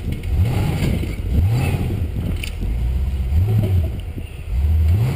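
Off-road competition truck's engine revving in repeated short bursts, the pitch climbing with each rev about four times, as the truck works its way up a rock climb under load.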